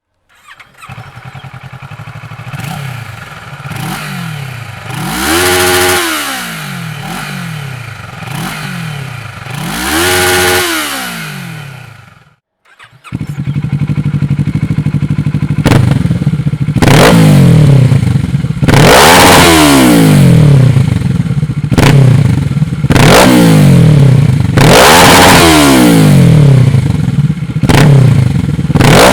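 Kawasaki ER-6n 650 parallel-twin motorcycle engine with a Dominator aftermarket exhaust, idling and being revved in repeated throttle blips that rise and fall back to idle. After a break about 13 seconds in, a second, louder take follows with more blips.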